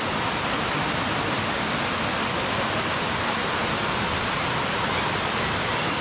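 Steady rush of Mingo Falls, a tall waterfall pouring down a rock face and tumbling over the boulders and logs of the cascade below.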